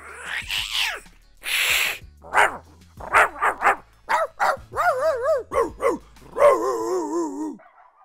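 A man's voice imitating animals. It starts with a grumpy cat's falling growl-meow and a hiss, then goes into a quick run of dog barks and yips. Near the end come longer, wavering dog-like howls.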